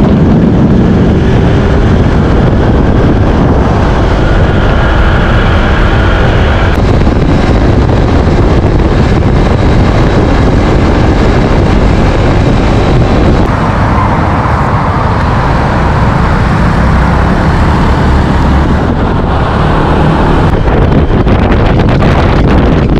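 Wind rushing over the microphone and road noise of a Honda ADV 160 scooter ridden at highway speed, its engine running underneath, loud and steady. A faint high whine rides on top from about four to seven seconds in.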